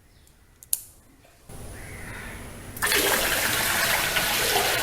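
A single sharp click in the quiet, then water begins to flow about a second and a half in and swells into a loud, steady rush of falling water from a small home waterfall fountain about three seconds in.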